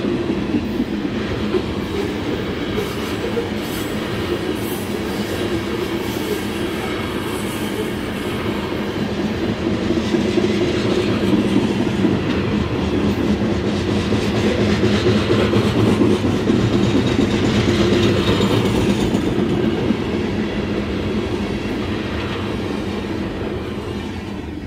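Train of coal hopper cars rolling past, their steel wheels rumbling steadily on the rails. The sound fades away over the last few seconds as the last car passes.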